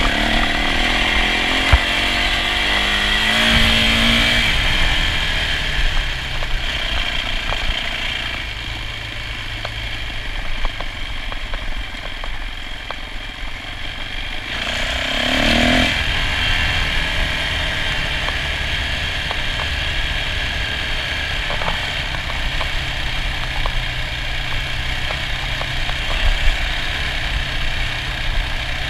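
Yamaha dirt bike engine running under way on a dirt trail. It picks up speed over the first few seconds and again briefly a little past halfway, with wind rumbling on the onboard microphone.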